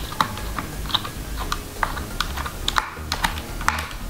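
Small screwdriver undoing the screws of a laptop's plastic RAM compartment cover: light, uneven clicks, about three a second.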